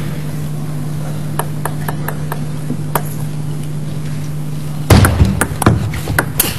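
Table tennis ball clicking: a few light taps in the first half, then, about five seconds in, a quick run of louder sharp knocks of the ball on bat and table. A steady low hum runs underneath.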